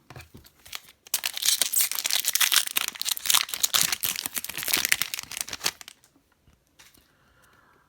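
Foil wrapper of a trading-card pack being torn open and crinkled by hand, a dense crackling rustle that runs about five seconds and stops sharply near the six-second mark.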